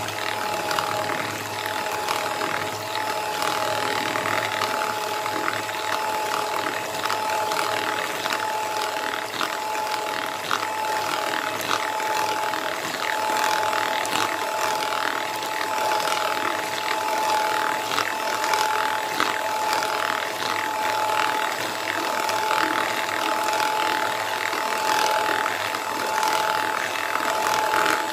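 Electric hand mixer running steadily with a whining motor, its wire beaters churning and clicking as they whip ghee with milk in a plastic bowl.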